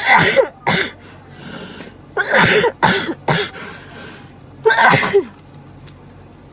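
A person sneezing over and over, set off by a Covid-19 nasal swab pushed up the nose. There are three sneezing fits about two seconds apart, each a loud, sudden burst followed by a quick shorter one, with faint breaths in between.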